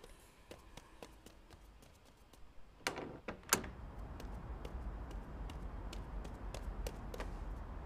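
Scattered light clicks, then two sharp knocks about three seconds in, followed by a steady low rushing noise.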